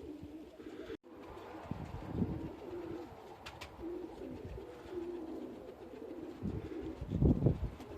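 Domestic pigeons cooing steadily, with a louder low rumbling burst about seven seconds in.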